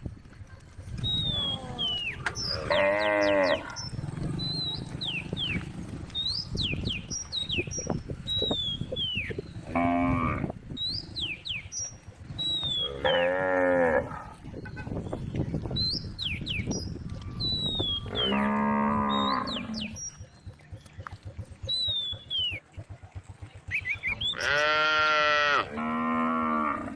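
Cows mooing, about six long drawn-out calls a few seconds apart, the last two close together. High, thin falling chirps come between the calls.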